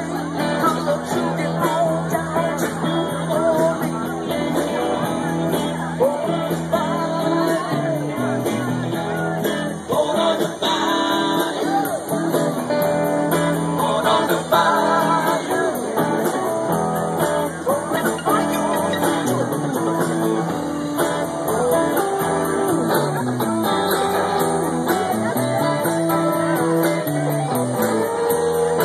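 Live rock band playing through amplifiers and PA speakers: electric guitars and bass, with singing.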